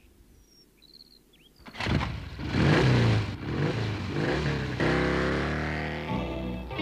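Sound effect of a small motorbike engine: it starts suddenly about two seconds in and revs as the bike rides off, then settles to a steady drone that slowly fades. Faint bird chirps are heard before it.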